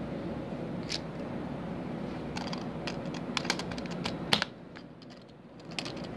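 Scattered light clicks and taps from fingers handling the phone that is recording, clustered a couple of seconds in, over a steady low background noise that drops away abruptly about four and a half seconds in.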